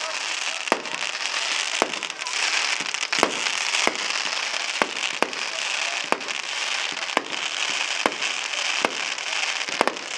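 Fireworks display: about a dozen sharp bangs at irregular intervals over a steady crackling hiss.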